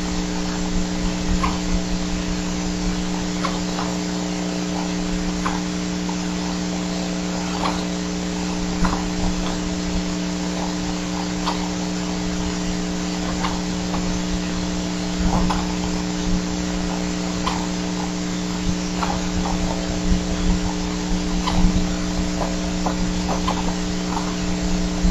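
Steady electrical hum and hiss from the nest camera's audio feed, with irregular faint short ticks scattered through it.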